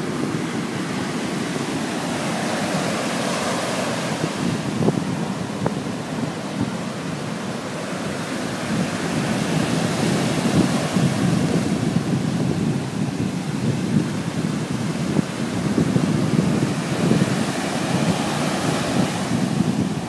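Heavy surf breaking and washing up the shore in strong wind. Wind buffets the microphone in a steady low rumble that swells and eases with the gusts and the waves.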